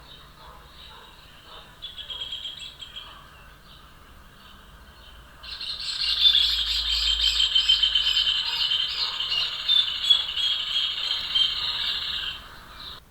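Rufous hornero singing: a few softer calls, then about five and a half seconds in a loud, fast run of rapidly repeated notes that lasts about seven seconds before stopping, the ringing chorus typical of the species.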